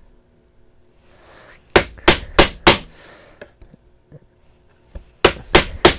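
Mortise chisel driven into a wooden board by hard mallet blows, chopping out a mortise: about four sharp whacks in quick succession about two seconds in, then another quick run of whacks near the end.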